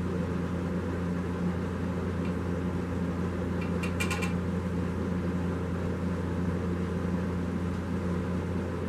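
Steady low machine hum in a workshop. About four seconds in there is a brief cluster of faint clicks from a small plastic epoxy bottle being handled and squeezed.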